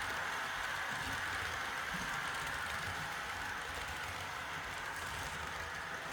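Model train, a Märklin V 200 model diesel locomotive hauling a rake of coaches, running along the layout track: a steady rolling and motor noise that slowly fades a little.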